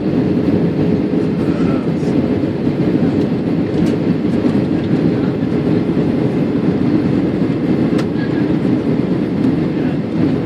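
Steady cabin noise inside an Airbus A320-232 on approach: the even rush of airflow over the fuselage and the rumble of its IAE V2500 engines, with a faint steady hum.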